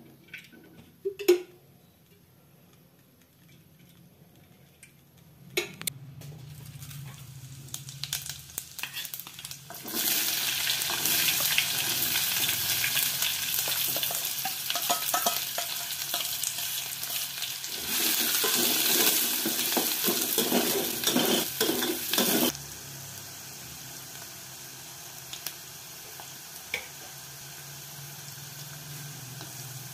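Chopped onions frying in hot oil in a metal pot, sizzling loudly and stirred with a spoon. The sizzle starts suddenly about ten seconds in and drops to a quieter sizzle a little after twenty seconds, with a few knocks of the spoon or pot near the start.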